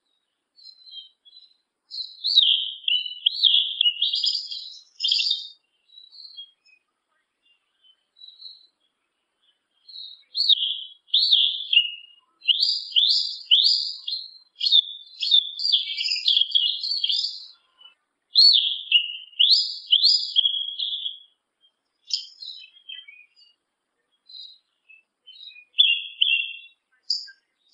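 Yellow-legged thrush (sabiá-una) singing: high, rapid phrases of quick down-slurred notes with short pauses between them. One burst comes a couple of seconds in and a longer run fills the middle, followed by a few scattered short notes.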